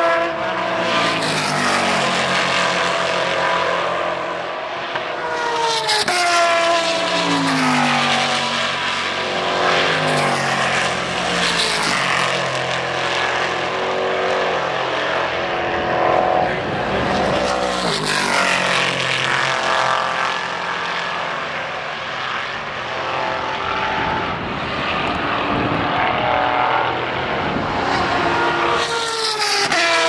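Several race cars, a Daytona Prototype and GT cars among them, passing one after another at speed with their engines running at high revs. Engine notes overlap, and their pitch falls several times as cars go by or brake and downshift, then climbs again as they accelerate back up through the gears.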